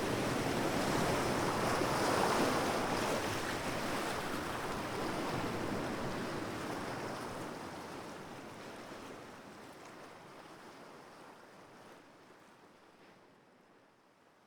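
Sea waves breaking, a surge about two seconds in, then the whole sound fading out steadily.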